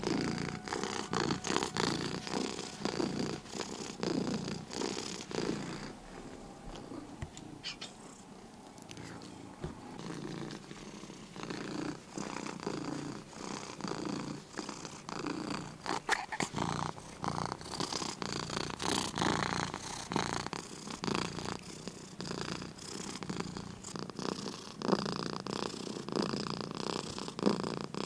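A domestic cat purring in a continuous run of fine rapid pulses, swelling and fading, and quieter for a few seconds in the middle.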